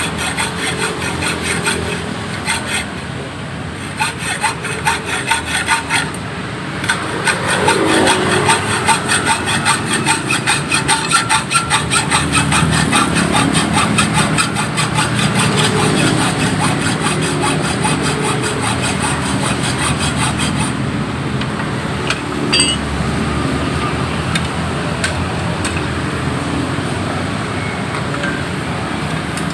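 A hacksaw cutting a rusted steel motorcycle exhaust pipe, in rapid back-and-forth strokes.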